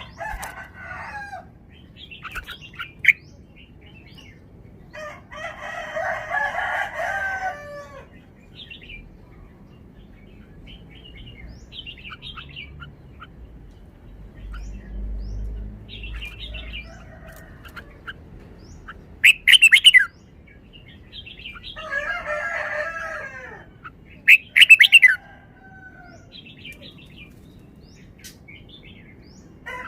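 Red-whiskered bulbul singing: warbled song phrases a couple of seconds long, broken by short, loud whistled notes and brief pauses.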